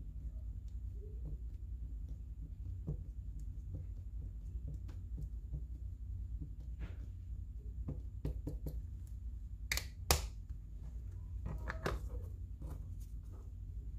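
Paper and stationery being handled on a desk: scattered light taps and clicks, with two sharp clicks close together about ten seconds in and a few more soon after, over a steady low hum.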